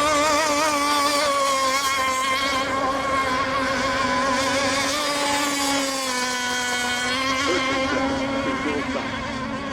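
Radio-controlled racing boat engines running at high revs, a loud buzz whose pitch wavers up and down as the boats circle.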